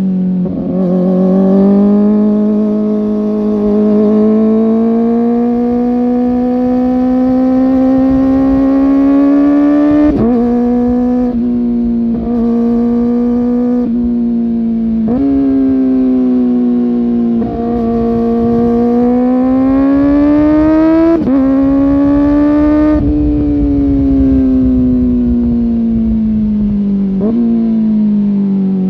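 Kawasaki ZX-4R's inline-four engine heard while riding. It holds fairly steady revs that climb slowly, broken by about half a dozen quick gear changes where the pitch drops or jumps sharply.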